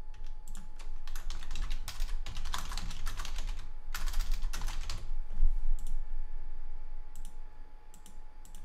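Typing on a computer keyboard: quick runs of keystrokes for the first five seconds or so, then a few separate clicks near the end.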